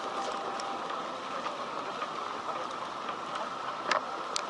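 Steady hiss of heavy typhoon rain on a city street, with a few sharp ticks near the end.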